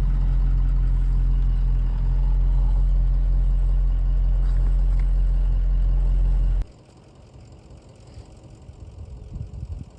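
Vehicle engine idling with a steady low hum, then switched off about two-thirds of the way through, cutting off abruptly.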